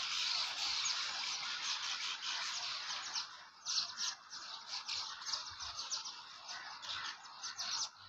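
A colony of swallows chirping and twittering at their mud nests: a dense, continuous high twittering that thins about three and a half seconds in into many separate quick chirps.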